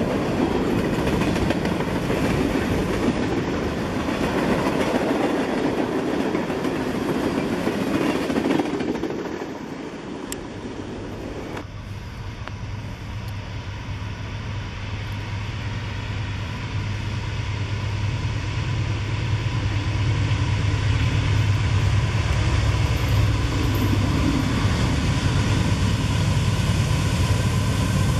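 A freight train of tank cars and covered hoppers rolling past, a broad rumbling noise that fades about nine seconds in. Then a steady low drone from approaching CSX diesel locomotives, growing louder toward the end.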